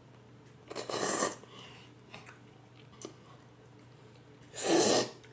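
Noodles being slurped from a bowl in two short, loud, hissing slurps, one about a second in and one near the end, with faint clicks between.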